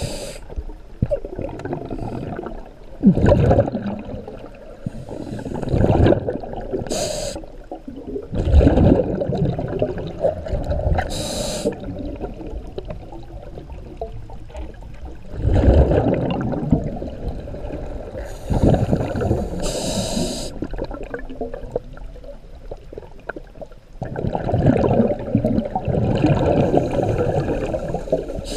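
Scuba diver's breathing through a regulator, heard underwater: short hissing inhalations and bubbling exhalations every few seconds, unevenly spaced.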